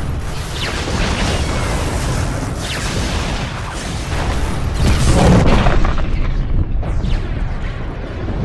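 Sound-effect explosions of a starship cruiser loaded with Rhydonium blowing up: a series of booms and blasts, loudest about five seconds in.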